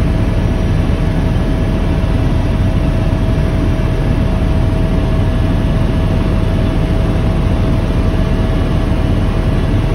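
Helicopter in flight, heard from inside the cabin: a loud, steady drone of engine and rotor with a constant whine above it.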